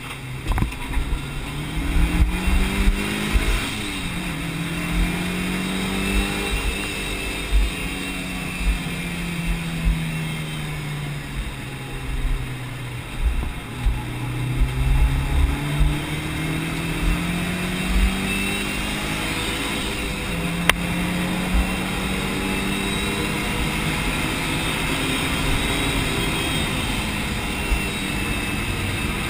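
Stock turbocharged 2.0-litre four-cylinder engine of a Mitsubishi Lancer Evo Tommi Mäkinen RS, heard from inside the cabin while lapping a circuit. The engine note climbs over the first few seconds, sinks slowly through the middle as the car slows, climbs again and holds fairly steady near the end, over a low road and wind rumble.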